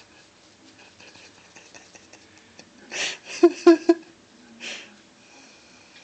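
Soft rustling of a small dog wriggling on its back on carpet while a foot scratches its belly, then about halfway through a breathy burst and three quick chuckles from a person, with another breath shortly after.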